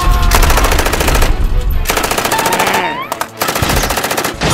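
Cartoon gatling-gun sound effect: two long bursts of rapid automatic fire, the second starting about three seconds in, with a short rising whine between them.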